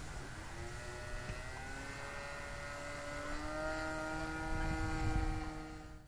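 Engine of a Seagull Edge 540 radio-controlled aerobatic model plane buzzing on its landing approach, slowly rising in pitch and growing louder. Low wind rumble on the microphone underneath.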